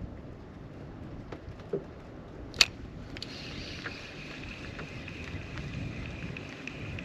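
Fishing reel on a light jigging rod: one sharp click about two and a half seconds in, then a thin steady whine as the spool pays out line and the metal jig sinks. Wind and water lapping at a small fibreglass boat's hull sit underneath.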